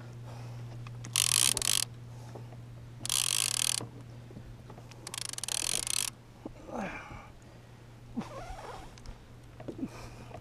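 Penn fishing reel working in three short bursts of rapid ratcheting clicks while a hooked mahi-mahi is brought in.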